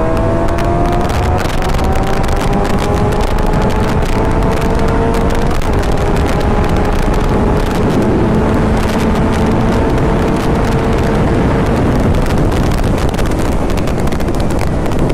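Suzuki GSX-R inline-four engine running while the bike is ridden, heard through a helmet-mounted microphone. The engine note climbs slowly for the first few seconds and then holds steady. Wind noise and crackling wind buffeting sit over it.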